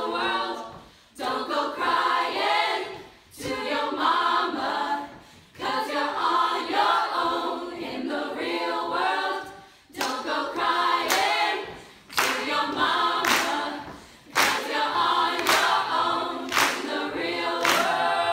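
All-female a cappella group singing, a lead soloist over backing voices, in phrases with short breaks between them. From about ten seconds in, hand claps land roughly once a second.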